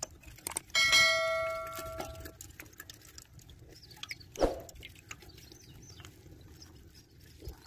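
A metal bowl is struck once about a second in and rings clearly, fading over about a second and a half. A dull thump follows a few seconds later, with faint wet noises of mud being scooped by hand and bowl.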